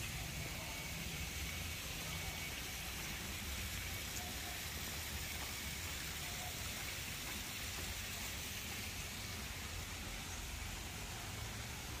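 Steady outdoor background noise: an even hiss with a low rumble underneath, with no distinct events.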